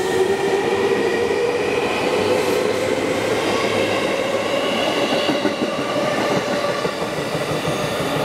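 JR East 251 Series electric express train pulling out and accelerating past the platform: its traction motors whine in several tones that slowly rise in pitch over the running noise of the wheels.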